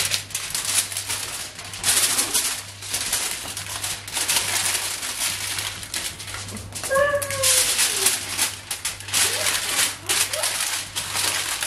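Aluminium foil crinkling and rustling as hands fold it around a stuffed whole fish, an uneven run of crackles. About seven seconds in a short falling cry sounds once, and a fainter one near the end.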